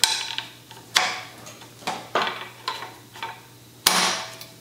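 A three-way hex wrench turning and knocking in the expander bolt of a quill stem, making about seven sharp metallic clicks with a short ring, spaced irregularly. The heaviest knock comes near the end.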